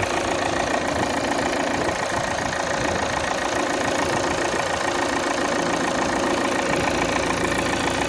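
2017 Volvo XC90 D5's four-cylinder diesel idling steadily on a cold start, with a buzzing that the owner finds strange and cannot explain.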